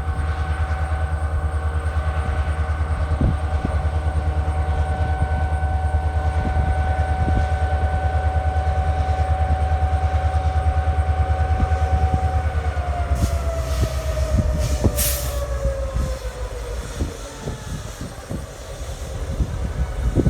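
Freight train passing with a heavy diesel rumble and clacking wheels over the rail joints. A steady whine drops in pitch about two thirds of the way through as the train goes by, and there are a few brief hisses around the same moment.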